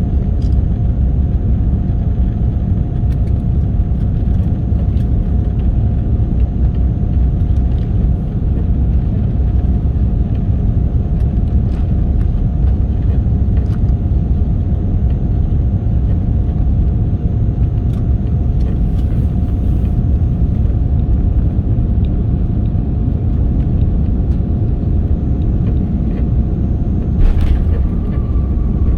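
Airliner cabin noise: a steady low rumble from the jet engines and airflow, with a thin steady hum held above it. Near the end comes a brief rushing noise, and a second, higher hum starts.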